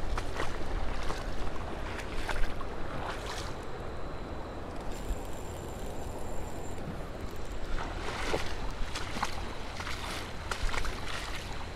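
Steady rush of river water below a dam spillway, with wind buffeting the microphone and a few scattered light clicks.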